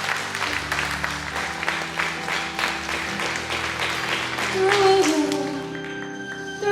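Congregation clapping over held chords from the worship band, with a voice gliding in near the end as the clapping thins.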